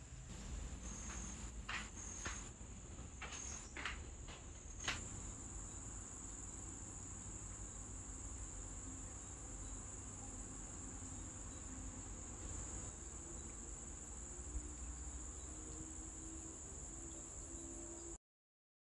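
Insects trilling: a steady high-pitched trill, with a few short high chirps and clicks in the first five seconds. The sound cuts off suddenly near the end.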